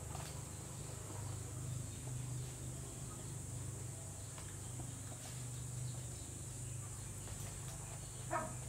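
Steady low hum under a steady high hiss, with one short, louder animal call near the end.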